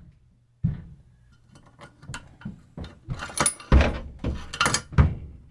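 Irregular knocks and clinks of small metal outboard gear-case parts being handled and set down on a bench, the loudest knocks near the middle and near the end.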